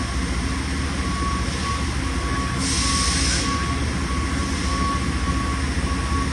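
Steady machinery hum of a machine shop, with a faint high tone pulsing on and off. A short hiss comes about two and a half seconds in.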